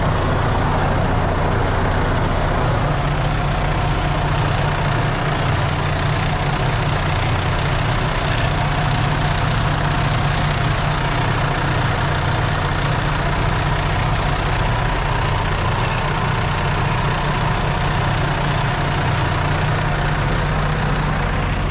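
Semi truck's diesel engine idling, loud and steady, left running before shutdown after a long, heavily loaded mountain climb.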